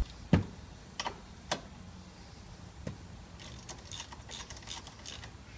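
Ratchet wrench with a 7 mm Allen-key bit undoing a brake caliper bolt. A few sharp metallic knocks come in the first three seconds, the loudest about a third of a second in. From about three and a half seconds there is a run of quick ratchet clicks.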